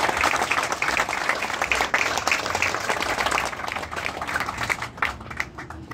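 Crowd applauding, the clapping thinning to a few scattered claps near the end.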